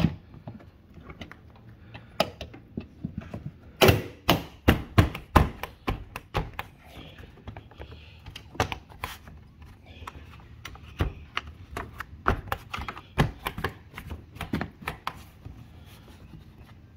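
Plastic air filter housing cover being fitted by hand: a run of sharp clicks and knocks as its clips are aligned and pushed into place, loudest and densest about four to five and a half seconds in.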